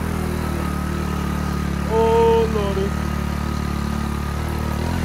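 Small motorbike engine running steadily at an even speed while riding, with a faint steady whine above it. About two seconds in, a short pitched sound lasts about half a second and dips in pitch at its end.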